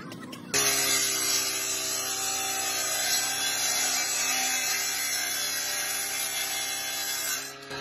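Table saw running and cutting a wooden plank: a steady motor hum under the noise of the circular blade in the wood, starting abruptly about half a second in and dipping briefly near the end.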